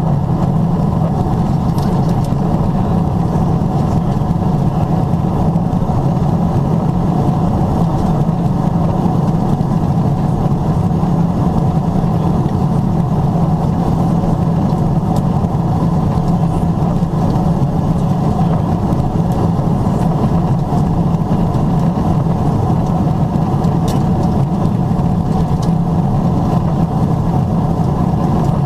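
Cabin noise inside a Boeing 777-300ER airliner in flight near the top of descent: a steady low drone of the engines and the rushing airflow, unchanging throughout.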